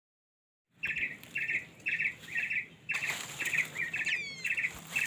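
A bird calling a short, buzzy, pulsed note over and over, about twice a second, with a quick falling call about four seconds in.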